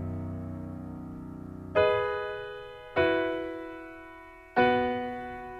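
Piano music between sung lines: a held chord fades, then three chords are struck about two, three and four and a half seconds in, each left to ring and die away.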